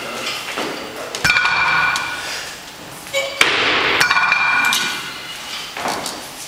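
Metal weight plates on a loading pin clanking as a Rolling Thunder grip handle is pulled and let go, three metallic clanks about two seconds apart, each ringing on for a moment.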